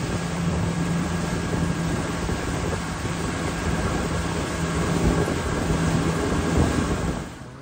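Outboard motor pushing a boat at speed, a steady engine hum under the rush of wind and wake water. Wind buffets the microphone. The sound drops away near the end.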